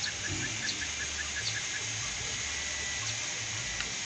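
Steady outdoor hiss with an uneven low rumble, and a quick, even run of small high chirps, about six a second, that stops about a second and a half in.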